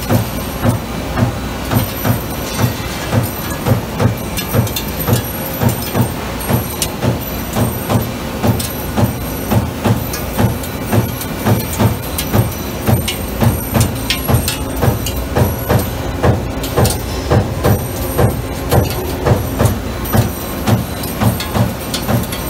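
Amada Vipros 357 Queen CNC turret punch press running, its ram cycling in an even rhythm of low thumps about two a second over a steady machine hiss and hum.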